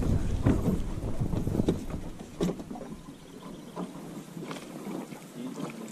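Wind rumbling on the microphone, dropping away about halfway through, with a few sharp knocks and clicks.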